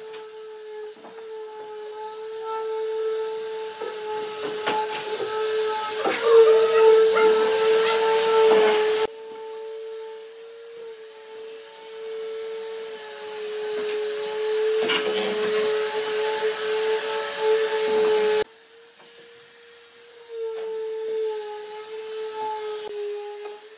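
An electric power tool working wood. Its motor runs with a steady whine while the rough grinding noise swells and eases as it bites. The sound breaks off abruptly about nine seconds in and again near eighteen seconds, then carries on.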